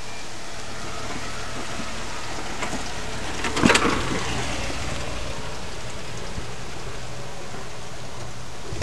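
Jeep Cherokee driving slowly along a dirt trail, its engine a steady low hum under a wash of noise. A short loud burst of noise comes about three and a half seconds in, as it passes closest.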